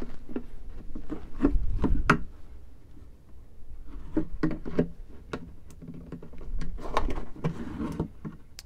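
Hands handling a plastic gas can and prying at the plastic insert inside its spout: irregular clicks, knocks and light scraping of plastic, with a few duller thumps about two seconds in.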